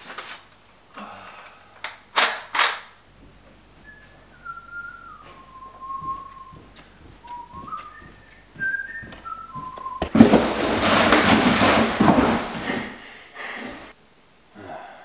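A man whistling a short tune, single clear notes stepping up and down. Two sharp knocks come shortly before the tune, and after it a loud rushing noise lasts about three seconds.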